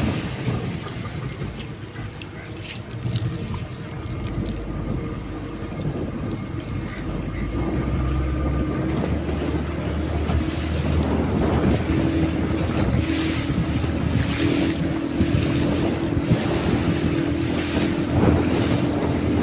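Wind buffeting the microphone over the wash of the sea from a ship, with a steady low hum that grows louder through the second half.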